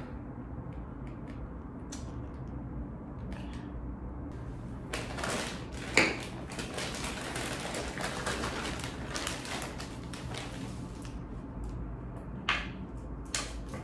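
Plastic bags and bubble wrap crinkling and rustling as office chair parts are unwrapped by hand, with a sharp knock about six seconds in and a few more clacks near the end.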